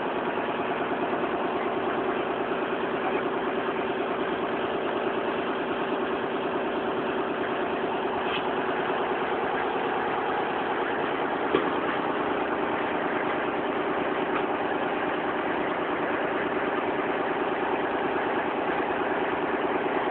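An engine running at a steady, unchanging speed, with one brief click about eleven seconds in.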